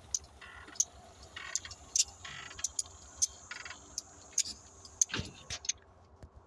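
Alaska Railroad passenger cars rolling past at low speed: a string of irregular sharp clicks from the wheels on the rails, with short hissy bursts of rail noise and a faint steady hum underneath.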